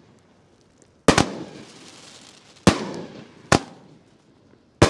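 Consumer firework cake firing its aerial shots: after a quiet first second come five sharp bangs about a second apart, two of them almost together, each trailing off in a rolling echo.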